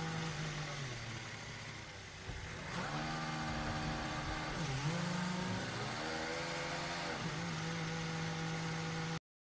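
Onboard engine sound of a 2021 Formula 1 car's 1.6-litre V6 turbo-hybrid during a pit stop: a steady note on the pit-lane speed limiter, sagging in pitch about two seconds in, then rising again with two brief dips before holding a steady note as the car runs down the pit lane.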